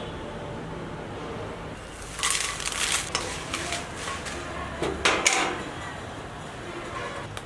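Kitchen handling noises: a spell of clattering and rustling about two seconds in, and another short clatter around five seconds, over a steady low background hum.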